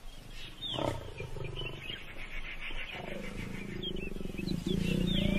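Asiatic lion growling: a low, pulsing growl that starts about three seconds in and grows steadily louder.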